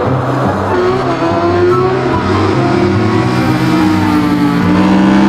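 Racing engine at high revs, holding its pitch and then rising near the end.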